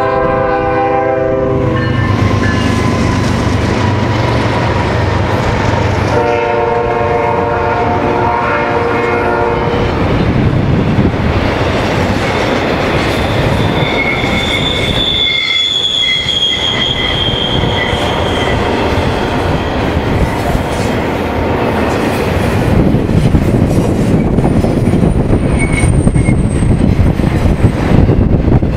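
Freight train horn sounding a long chord at the start and again about six seconds in, with a low rumble between the two blasts. Then a double-stack container train rolls past close by: high wheel squeal around the middle, and rhythmic clicking of wheels over the rail joints, louder near the end.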